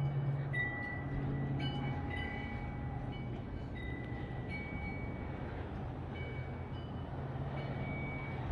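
Hanging metal wind chime ringing irregularly, several clear tones struck one after another, over a steady low rumble of wind.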